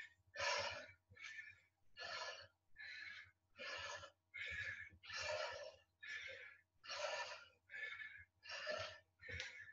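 A person breathing hard from exertion: short, rhythmic puffs of breath, about one every three-quarters of a second.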